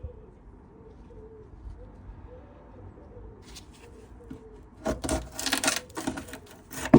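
Scraping and rubbing from about five seconds in as underseal is pulled away from a van's floor panel, ending in a sharp knock. Before that, faint pigeon cooing over a low background.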